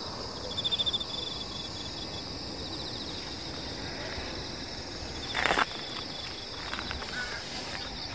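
Insects chirping in summer grass: a steady high-pitched insect chorus, with loud rapid pulsed trills from a nearby insect about half a second in and again about five and a half seconds in, the second joined by a brief burst of noise.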